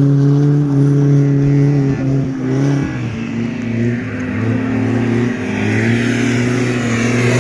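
Off-road race vehicle's engine running at high, steady revs, its pitch dipping briefly about three seconds in and then holding again slightly lower. A hiss builds near the end.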